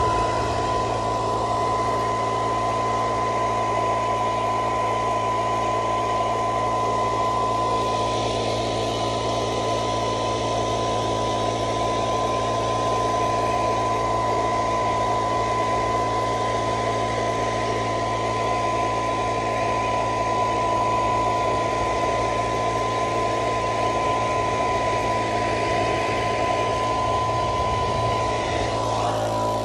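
Electric cart with an air blower running steadily, a constant high whine over a low hum and rushing air, blowing over tomato plants to shake the flowers for pollination.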